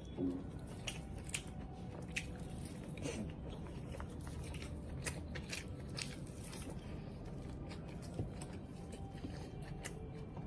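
A man eating momo dumplings close to the microphone: soft biting and chewing with irregular small mouth clicks and smacks.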